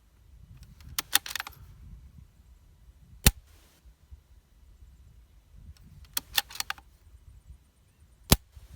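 A Tikka T1X .22 LR bolt-action rifle being fired twice: a quick run of metallic clicks as the bolt is cycled, then a single sharp shot about three seconds in. The bolt clicks again and a second shot comes near the end.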